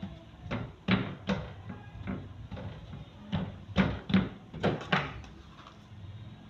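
Hands patting and pressing a round of dough flat on a floured table, a dozen or so uneven thumps that stop about five seconds in.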